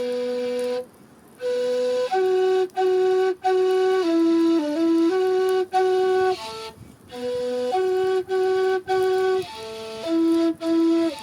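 A flute-like wind instrument playing a slow melody of held notes, with short breaks between the notes and two longer pauses for breath, about a second in and near the middle.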